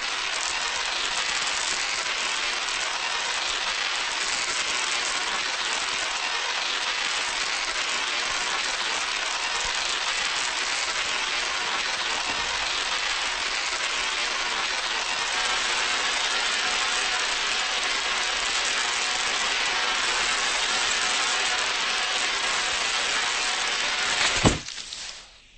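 Home-built Tesla coil throwing sparks: a loud, steady noise that cuts off suddenly with a sharp click near the end as the coil stops. It quit when it should have kept running, a failure put down to the spark gaps being set too far apart on the spark-coil vibrator.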